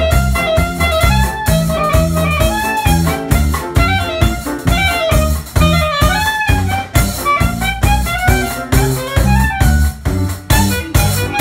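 Clarinet playing a jazz melody with a drum kit keeping time and a low bass line underneath.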